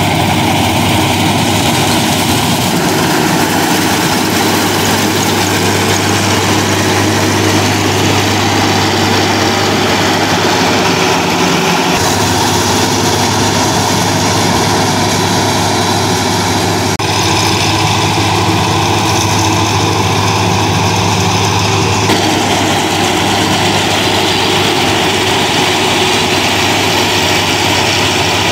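A combine harvester converted into a straw chopper, working under load: its six-cylinder Fiat diesel engine runs steadily, with the chopper cutting wheat straw and blowing it into a trailer. The sound is a constant, loud machine din with a low hum, and its tone shifts abruptly a few times.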